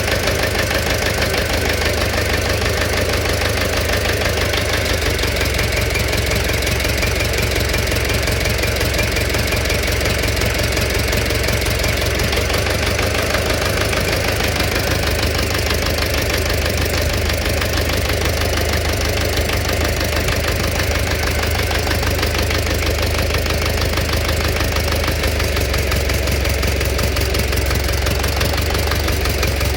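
Engine running steadily with a fast, even knocking throughout: the engine knock that the video is about.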